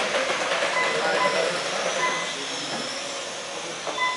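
Electric motors of 1/12-scale RC pan cars whining as the cars race around the track, over steady noise. The sound dips about halfway through and rises again near the end.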